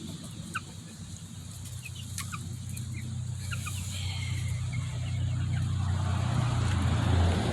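Young chickens peeping and clucking, with short high chirps scattered through the first few seconds. Under them runs a steady low hum that grows louder toward the end.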